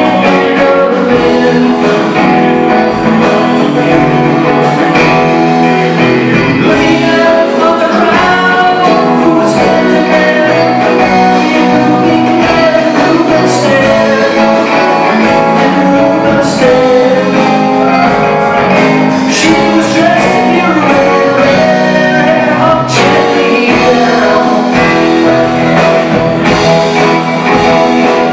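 Live rock band playing: electric guitar, drum kit and keyboards, with singing.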